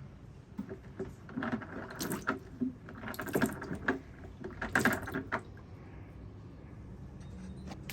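A run of knocks and clicks, loudest around the middle, with quieter background noise before and after.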